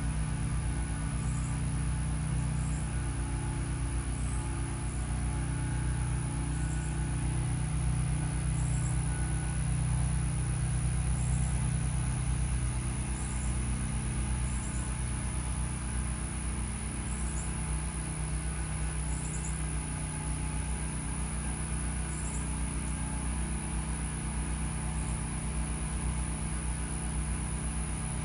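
A steady low engine or motor hum runs throughout. Short high chirps repeat above it every one to two seconds.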